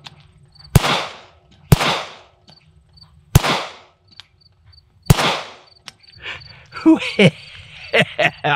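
Four shots from a Staccato P 2011 9mm pistol at an uneven pace, about one to two seconds apart, each ending in a short echo. After the last shot a man's voice is heard briefly near the end.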